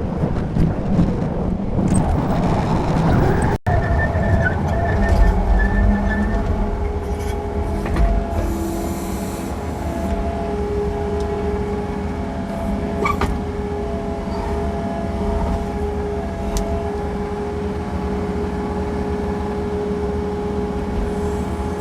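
A machine's engine running steadily, with a higher whine that comes and goes over it.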